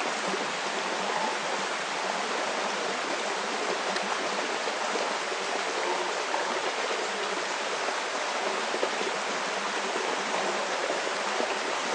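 A stream running: a steady, even rush of flowing water with no breaks.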